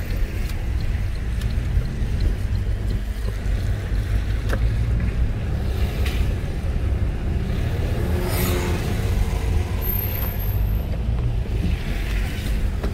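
Steady low rumble of a car's engine and tyres on a wet road, heard from inside the cabin while driving slowly in the rain.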